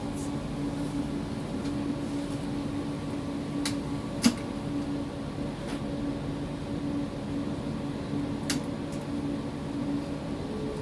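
Cabin of a PESA Fokstrot low-floor tram running: a steady hum with a constant tone, broken by a few sharp clicks and rattles, the loudest about four seconds in.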